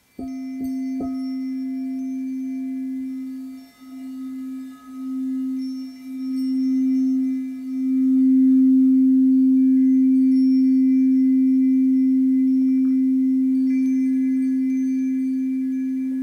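Frosted crystal singing bowl struck twice with its wand in the first second, then rubbed around the rim. One steady low tone wavers and swells, peaks about halfway through, then slowly fades.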